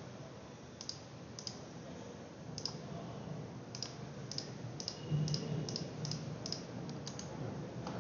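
Computer mouse clicking: about a dozen short, sharp clicks, a few early on and then about two a second in the second half, over a low steady hum.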